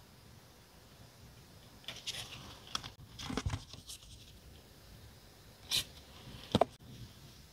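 Hands handling sticker and label packaging: a run of crinkling and tearing about two seconds in, a short rustle near six seconds, then a light tap.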